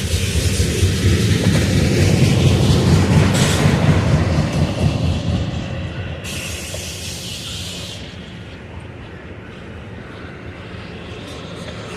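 Freight cars of a garbage train rolling past on the rails. The wheels rumble and clatter, loudest in the first five seconds and then easing off. About six seconds in there is a high hissing screech lasting about two seconds.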